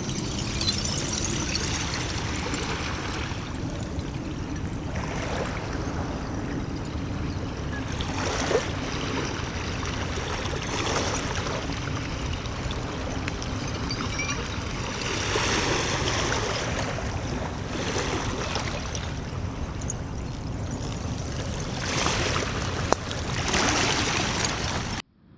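Sea waves breaking and washing in over a steady rushing and low rumble, with a swell of surf every few seconds.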